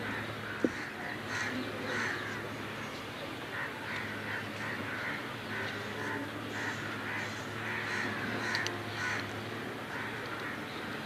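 Birds calling over and over, short harsh calls coming every half second or so, with one sharp click less than a second in.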